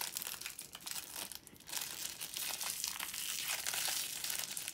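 Small plastic wrapper from an L.O.L. Surprise toy crinkling and tearing as it is pulled open by hand, a quick run of crackles that thickens from about halfway through.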